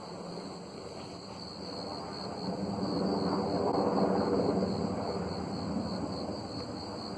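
Helicopter flying overhead behind the clouds: its engine and rotor noise swells to its loudest about four seconds in, then fades. Insects chirr steadily and high underneath.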